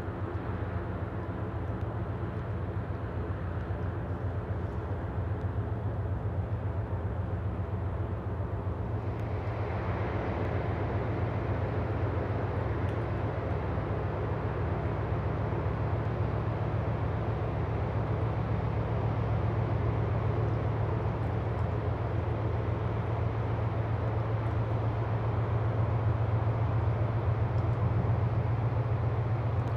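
Steady low drone of a large ro-ro cargo ship's engines carrying across the water, with a broader hiss joining about nine seconds in.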